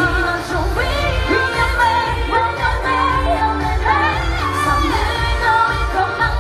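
K-pop girl group singing live into hand microphones over a loud pop backing track with a steady, heavy bass beat.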